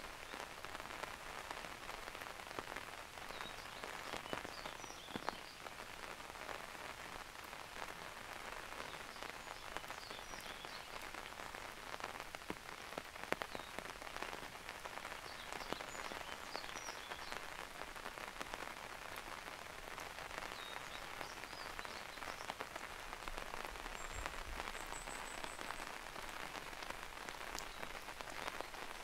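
Steady rain falling in a forest, with many individual drops ticking sharply close by. About three quarters of the way through there is a brief high chirping.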